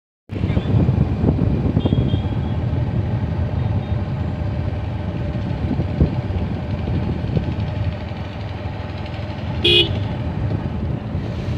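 Steady low rumble of traffic, with one short horn toot about ten seconds in.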